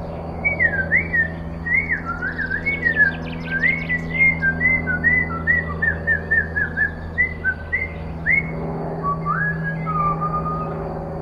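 A person whistling a wandering tune of short sliding notes, pausing about eight seconds in before a couple of longer notes near the end. Faint bird chirps sound behind it.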